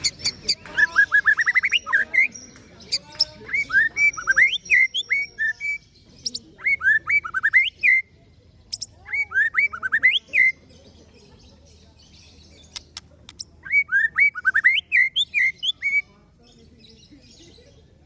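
White-rumped shama singing: phrases of quick, rising whistled notes repeated in rapid series, mixed with sharp high clicking notes, each phrase lasting a second or two with short pauses between them.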